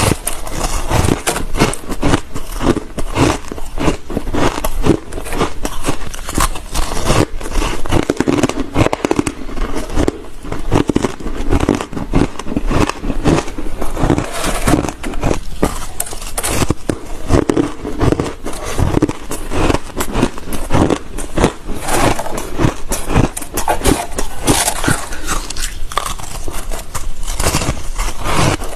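Close-up biting and crunching of fluffy, squeaky ice: dense, rapid crunches that keep going, with squeaks mixed in.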